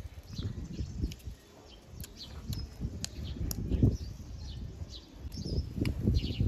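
Close-miked eating sounds: wet chewing, lip smacks and irregular clicks as smoked buffalo meat and crispy fried fish are chewed.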